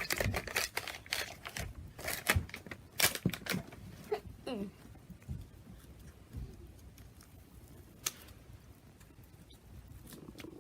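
Plastic wrapper being torn and crinkled off a bath bomb: a quick run of sharp crackles and rips that thins out after about three seconds into a few scattered crinkles.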